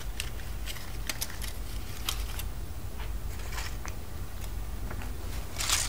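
A surprise egg being handled and opened by hand: scattered small clicks and crackles, with a longer crinkling rustle near the end.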